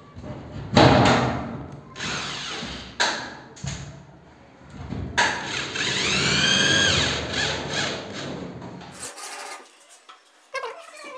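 Cordless screwdriver driving screws into a gypsum board ceiling, in several short runs. The longest, about five seconds in, lasts around three seconds, its motor pitch rising and then falling. After about nine seconds only faint sounds remain.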